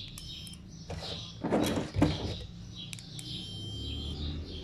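Multimeter test probes clicking and tapping against a laminator circuit board while a diode is tested, with short high-pitched electronic beeps.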